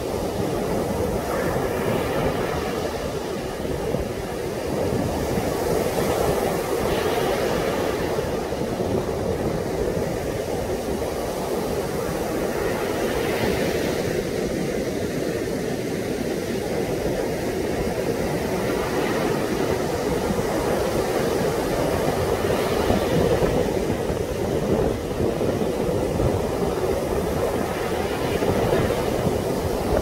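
Heavy surf breaking on a sandy beach, a continuous wash of noise that swells and eases slightly, with strong wind buffeting the microphone.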